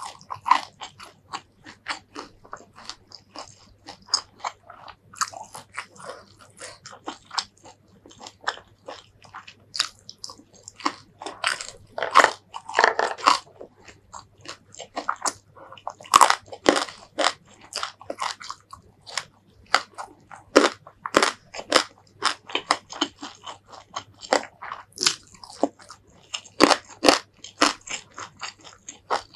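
Close-miked eating: a long run of crisp crunching bites and chewing of raw green vegetables and crispy fried fish, with louder bursts of crunching about twelve, sixteen and twenty-seven seconds in.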